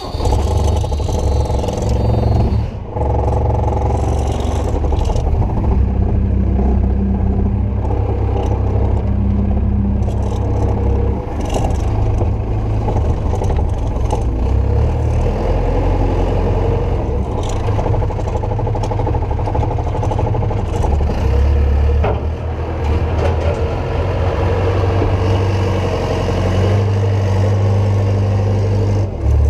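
JCB 520-50 telehandler's diesel engine starting up and then running as the machine pushes up a heap of crimped grain, the engine note rising and falling as it works. Heard from the open, doorless cab.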